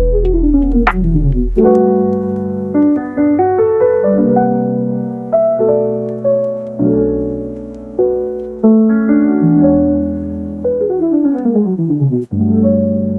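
Piano music: held chords and notes, with quick runs of falling notes at the start and again near the end. A sharp click sounds about a second in.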